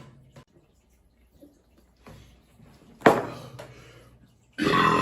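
A man belching from carbonated beer. A sudden short noise comes about three seconds in, then a loud, pitched burp starts near the end.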